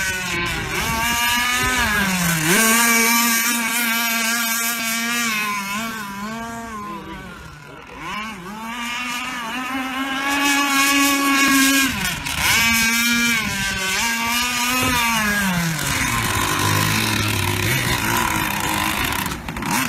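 RC speedboat's 40 cc two-stroke petrol engine running at high revs. Its pitch drops and climbs back several times as the throttle is eased and reopened through turns. About 16 s in it falls to a low, slow running note as the boat slows.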